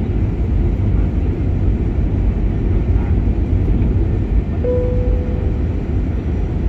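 Steady low rumble of engine and airflow noise inside an airliner cabin during descent. A short clear tone sounds once, a little past the middle.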